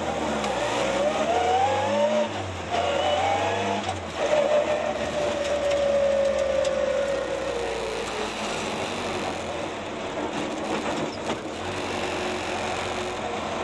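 Ford Escort RS Mk2 rally car's engine heard from inside the cabin, revving up twice in quick succession with a gear change between, then holding one long note that sinks slowly over about four seconds as it comes off the power, and running quieter after that.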